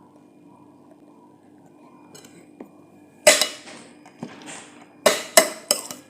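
Spoon and fork clinking against a plate during a meal: one sharp clink with a short ring about halfway through, a softer scrape, then three quick clinks near the end, over a faint steady hum.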